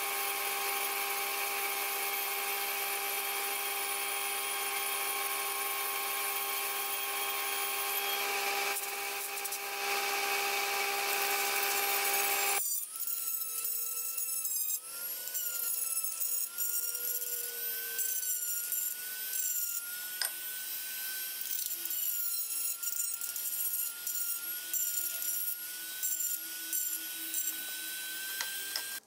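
CNC milling machine's end mill cutting a brass thrust washer from a brass plate: a steady machine whine with cutting noise. About midway it changes abruptly to a handheld rotary tool spinning at high speed against a metal lathe bracket, a high whine that wavers slightly in pitch over scratchy grinding.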